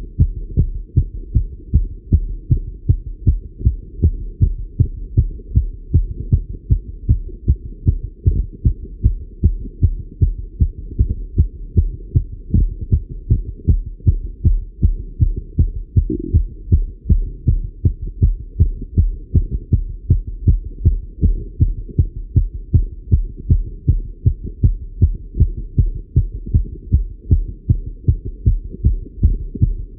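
A man's heartbeat heard through a Littmann stethoscope, beating fast and regularly, raised by the exertion of cycling.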